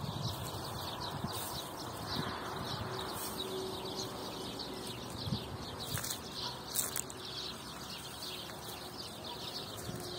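Small birds chirping steadily, many short high chirps overlapping, with a few faint clicks around the middle.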